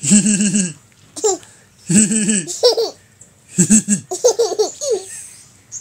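Laughter in about six short, choppy bouts: a small child giggling, mixed with lower-pitched adult laughing.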